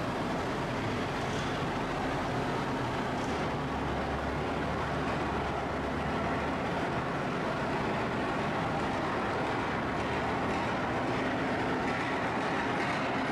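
Classic pulling tractor's engine running steadily under heavy load as it drags a weight-transfer sled across the dirt.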